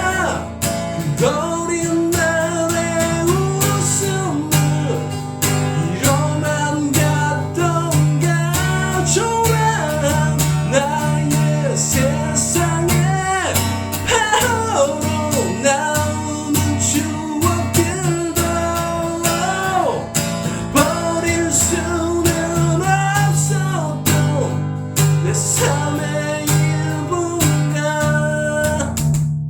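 Music: a pop ballad backed by guitar, with a bending, wavering melody line over steady bass notes. It cuts off abruptly at the very end.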